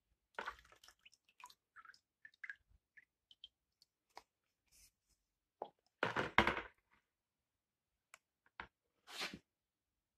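Water splashing and sloshing in a plastic bucket as a Cressi SL 55 speargun barrel is moved about in it, with scattered small clicks and knocks. The loudest splash comes about six seconds in, and a shorter one comes near the end.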